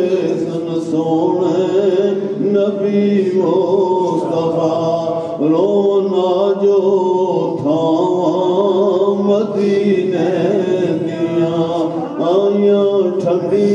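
Male devotional chanting: a slow melody sung in long, wavering held phrases, with a steady lower note sounding underneath.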